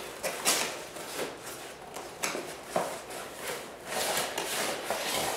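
A cardboard shipping box being opened and its packaging handled: irregular rustling and scraping of cardboard and paper, with a few short, sharp scrapes.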